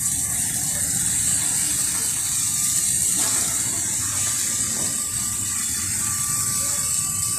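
Steady street traffic noise from a jam of vehicles: a low rumble under an even hiss.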